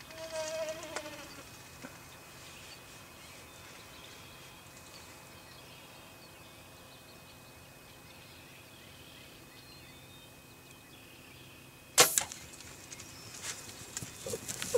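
A compound bow shot: one sharp, loud snap about twelve seconds in as the arrow with its Bullhead broadhead strikes the gobbler, followed by the bird's wings flapping in rapid, irregular beats near the end. A short turkey call sounds right at the start.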